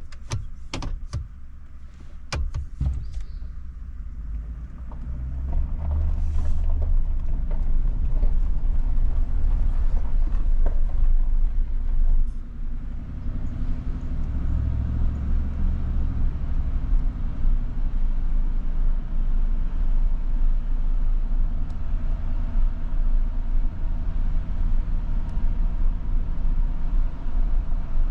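Car driving, a steady low road and engine rumble heard from inside the cabin, growing louder about five seconds in, with a few sharp clicks near the start.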